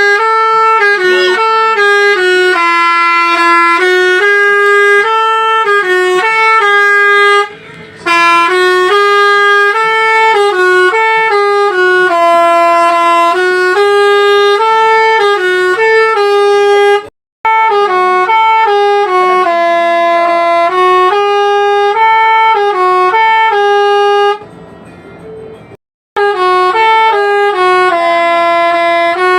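Bus telolet basuri horn, a multi-trumpet air horn, playing a loud melody of held notes stepping up and down, broken by a few short gaps.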